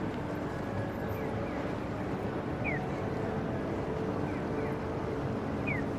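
Busy city-street ambience at a pedestrian crossing: steady traffic and crowd noise with voices. A short, high, falling electronic chirp from the crossing's audible walk signal repeats about every three seconds, with fainter chirps in between.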